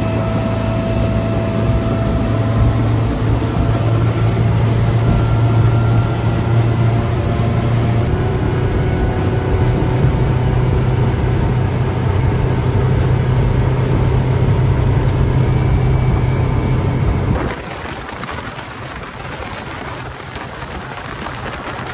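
Honda 250 hp V6 four-stroke outboard running under way at cruising speed with a steady drone, its note rising slightly about eight seconds in. About seventeen seconds in the engine sound drops away, leaving a quieter rush of wake, spray and wind.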